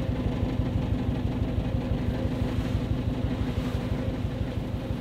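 1991 Volkswagen Westfalia camper van's engine idling with a steady, even low pulse.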